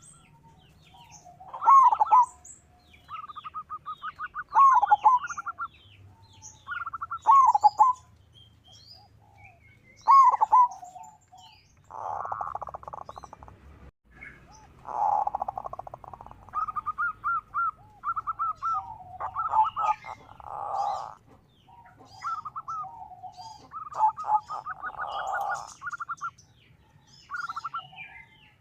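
Zebra dove (perkutut) calling again and again: phrases of quick staccato notes and falling coos, with a thin twittering of smaller birds above.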